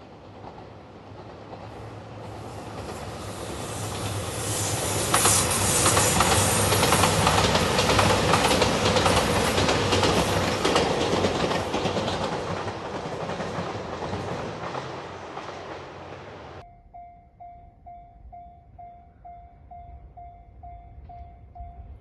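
JR 2700-series diesel limited express train passing close, its engines and wheels on the rails swelling to a peak and then fading away. About two-thirds of the way through, the sound cuts to a railway level crossing warning bell ringing steadily, about two rings a second.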